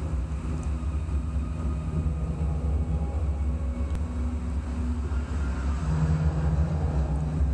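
Steady low mechanical hum, with a few faint steady tones above it.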